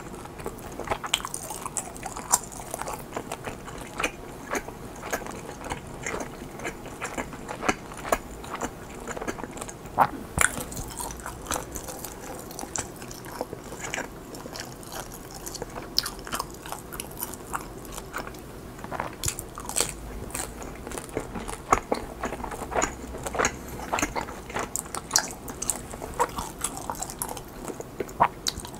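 Close-miked chewing of chewy mozzarella cheese-filled rice cakes (tteok): continual soft, sticky, wet mouth sounds with irregular small clicks.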